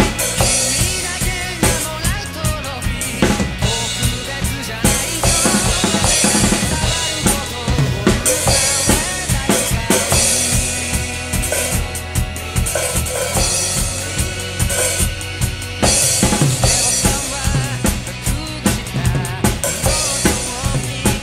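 Pearl acoustic drum kit played hard to a rock song in a steady driving beat: kick drum, snare and cymbals over a recorded band with guitars.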